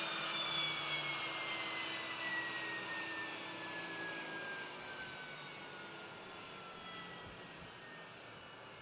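Turboprop engine spooling down: its turbine whine slides steadily lower in pitch and fades away.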